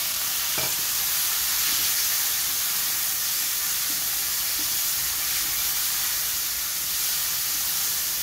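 Chopped tomatoes sizzling with a steady hiss in hot oil in a wok, as their juice hits the oil just after they go in with sautéed shallots and garlic. A spatula stirs them, with a faint knock about half a second in.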